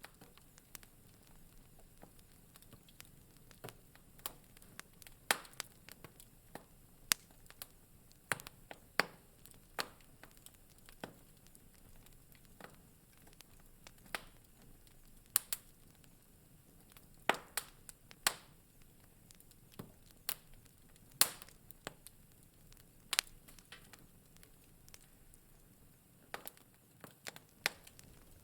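Wood fire in a fireplace crackling: irregular sharp pops and snaps over a faint steady hiss.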